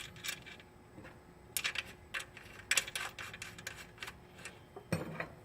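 Irregular small metal clicks and taps of washers, spacers and an axle nut being fitted onto a bicycle's rear axle.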